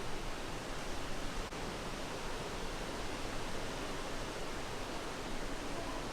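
Steady, even hiss of background noise, with one faint click about one and a half seconds in.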